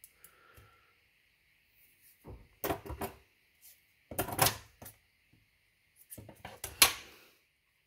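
Black electrical insulating tape pulled off its roll and cut with scissors: three short rasping spells about a second and a half apart, the last one the loudest.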